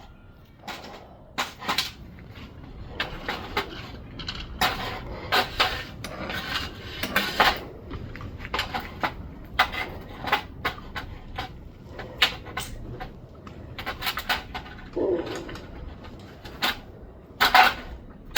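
A run of irregular clinks and knocks of hard, metallic objects being handled, several sharp strikes a second at times with quieter gaps between.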